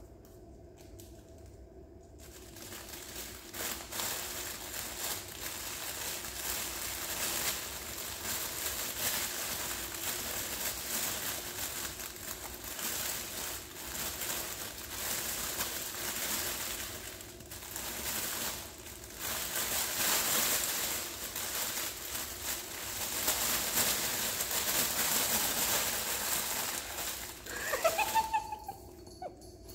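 Crinkly fabric pet play tunnel rustling and crackling on and off as ferrets burrow and scramble through it. Near the end there is a brief pitched squeak or call.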